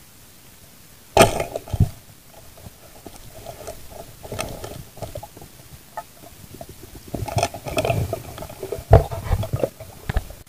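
Muffled underwater knocking and rumbling as a speared fish is handled on the spear shaft beside an underwater camera: a sharp burst about a second in and a longer run of knocks and rumble from about seven to ten seconds in.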